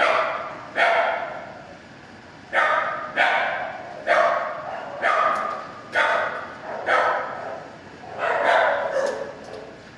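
Shelter dogs barking repeatedly, about one bark a second with a short pause near the start, each bark echoing off the hard kennel walls.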